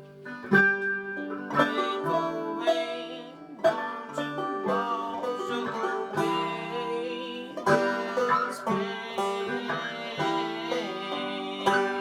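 Banjo playing a folk tune: a steady run of plucked notes with a sustained low drone underneath.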